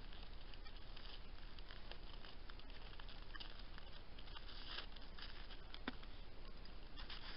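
Faint, irregular crunching and crackling of a deer's hooves stepping in frozen snow close by, with one sharper click about six seconds in, over the steady hiss of a trail camera's microphone.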